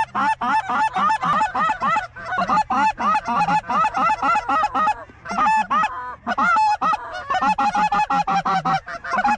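Goose honks and clucks, many short calls a second and overlapping in a continuous run, with a couple of brief gaps near the middle.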